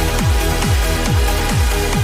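Trance music: a steady four-on-the-floor kick drum, a little more than two beats a second, under held synth chords.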